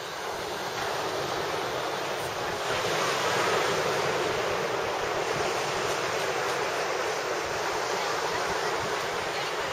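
Ocean surf breaking and washing ashore, a steady rushing noise that swells a little about three seconds in.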